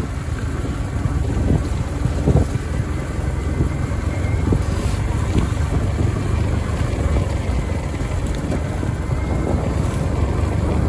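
Motorcycle engine running steadily as the bike rides along, with wind buffeting the microphone.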